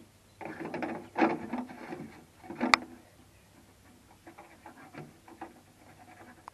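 Plastic sap jug and tubing being handled and rubbed against a maple trunk while the jug is fitted to the tap. There is a run of rustling and knocking, one sharp click near the three-second mark, then fainter fumbling.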